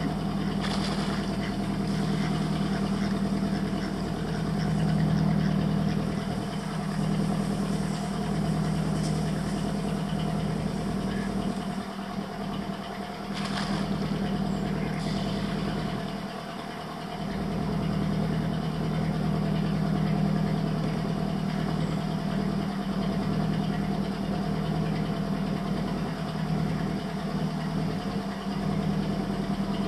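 Small boat's motor running steadily at low cruising speed, a constant low hum that eases briefly a little past the middle, with a few faint clicks.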